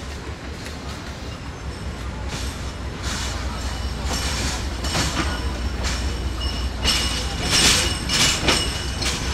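Passenger train pulling out slowly, heard from the coach doorway: a steady low rumble with irregular clacks and knocks from the wheels over the rail joints and points, getting louder from about three seconds in. In the second half thin high wheel squeal comes in over it.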